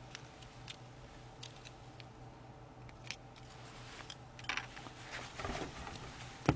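Faint scattered clicks of chopsticks and takeout food containers being handled at a table, over a steady low electrical hum. From about two-thirds in come louder rustling and knocks as a person moves close to the microphone and gets up from the chair, with a sharp knock near the end.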